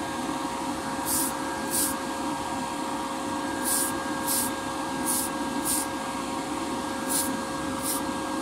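Short hissing bursts from an aerosol can of Tamiya TS-95 spray lacquer, about eight in all, each under half a second and mostly in pairs, over the steady hum of a spray booth's extraction fan.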